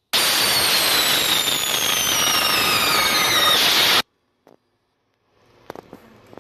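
Whistling-firework sound effect: a loud hissing rush with a high whistle gliding steadily downward for about four seconds, then cut off abruptly. A few faint clicks follow near the end.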